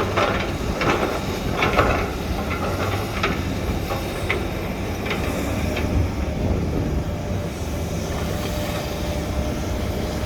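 SANY hydraulic excavator's diesel engine running steadily, with a run of metallic clanks and scrapes from the working machine over the first six seconds or so, then the engine alone.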